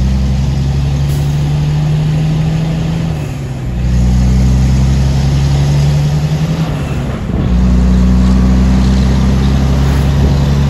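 Heavy truck's diesel engine running under load on a climb, heard inside the cab: a steady, loud engine note that briefly drops away twice, about three and a half and seven seconds in, then picks up again.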